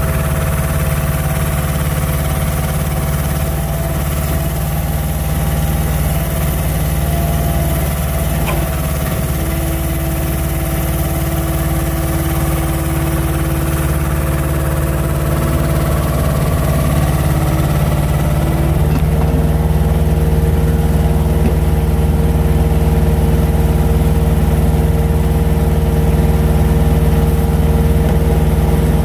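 Heavy diesel engine running steadily at a near-idle speed, its note stepping to a different, slightly louder setting about two-thirds of the way through.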